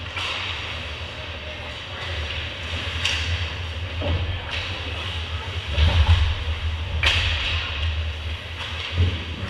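Ice hockey play on a rink: a steady low rumble under a hiss, broken by several sharp clacks of sticks, puck and skates, the clearest about three and seven seconds in.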